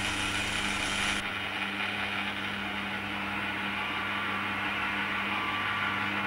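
Steady whirr of a working automaton's motor and mechanism, with a constant low hum underneath.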